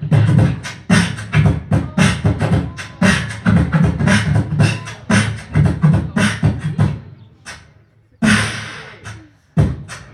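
Live human beatboxing, amplified through a microphone and PA: a steady rhythm of vocal kick-drum thumps with snare and hi-hat hisses, broken at about eight seconds by a longer hissing sweep before the beat picks up again.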